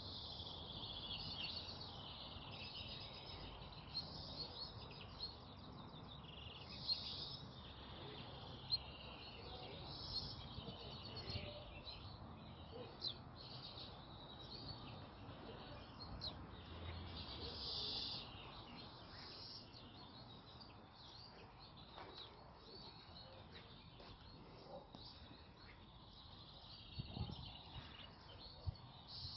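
Male chaffinches singing from wooden finch-contest boxes: short falling song phrases repeated every few seconds, fewer toward the end, over a faint outdoor hiss.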